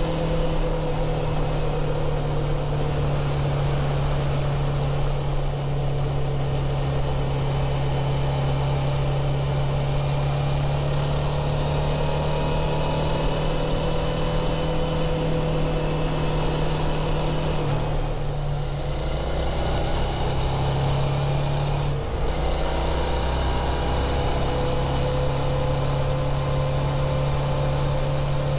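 2017 Suzuki V-Strom DL650's 645 cc V-twin running steadily through its stock muffler, the note drifting slowly in pitch. It dips and changes briefly about eighteen seconds in and again about twenty-two seconds in.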